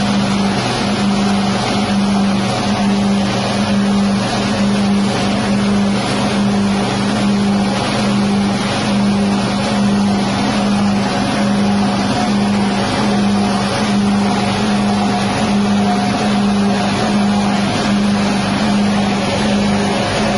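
Rice husk grinding machine driven by a 6.5 hp petrol engine, running steadily with a constant hum.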